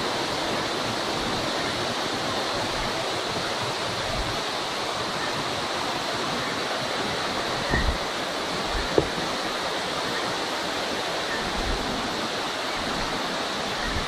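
Steady rushing of waterfall cascades, a constant even hiss of falling water. A couple of brief soft knocks come about 8 and 9 seconds in.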